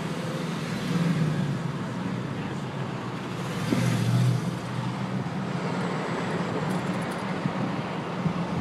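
Steady car engine and road noise heard from inside a moving car's cabin, with traffic around it.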